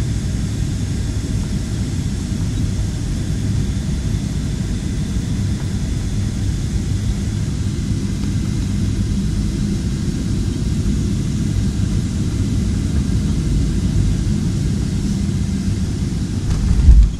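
Cabin noise of a Boeing 737 airliner: a steady, loud rumble of engines and airflow, with a brief, loud low thump near the end.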